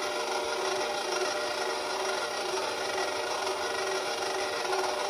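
KitchenAid Professional HD stand mixer running steadily, its motor and gears humming and whining as the dough hook turns through flour and liquid for pizza dough.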